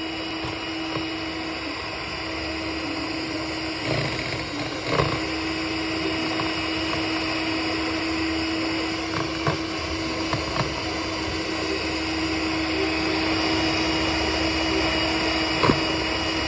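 Electric hand mixer running steadily, its twin beaters whipping eggs and sugar into a foam for a sponge batter, with a few brief knocks along the way.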